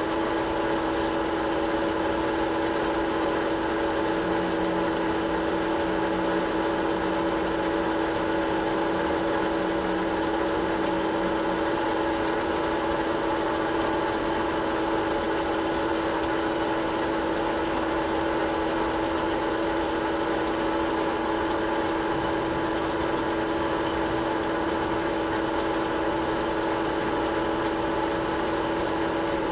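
Metal lathe running steadily with a constant hum, its spindle turning a rifle barrel's threaded tenon while a boring bar cuts the counterbore for the bolt nose.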